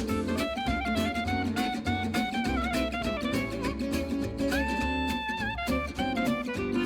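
Background music: an upbeat instrumental with a melody line over a steady plucked bass, one note held about midway through.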